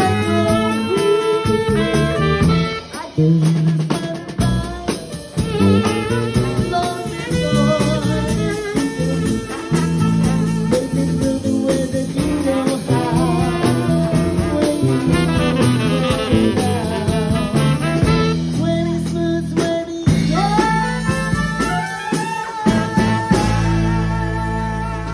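Live small jazz band playing, a trumpet carrying the melody over electric keyboard and drum kit.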